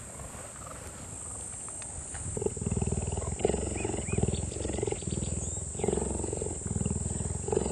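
Cheetah purring while being stroked by hand: a rapid, even pulsing rumble that starts about two seconds in and runs in phrases of about a second, breaking briefly between breaths.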